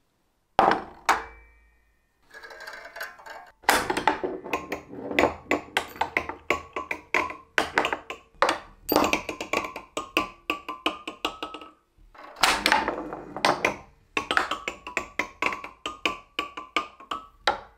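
A steel ball played on a 1940s wooden bagatelle pinball board: it is launched up the track, then rattles down through the nail pins in quick clicking runs, ringing the small bells as it strikes them. A second launch and run begins a little past the middle.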